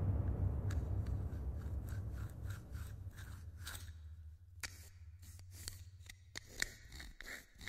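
Sound-design effects: a deep rumbling drone fades away while irregular dry clicks and scratchy ticks sound, sparse at first and more frequent and sharper in the second half.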